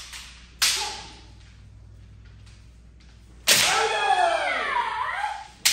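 Bamboo shinai striking kendo armour: a sharp crack that rings briefly in the hall. About halfway through comes another strike with a long, drawn-out kiai shout that falls in pitch, and a further crack comes near the end.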